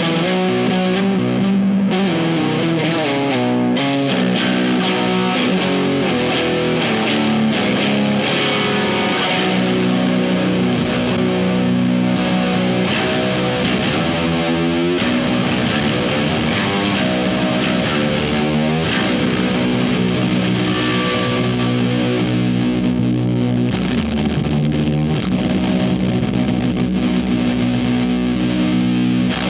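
Low-tuned electric guitar played with heavy distortion through stacked drive pedals, including the Wyong Rd Electronics Keris overdrive/fuzz/boost: sustained chords and riffs, with bent, wavering notes about halfway through.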